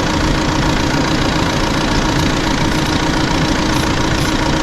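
Audi A5's engine idling steadily, heard from underneath the car, running so that the 7-speed automatic's oil is warm for the level check.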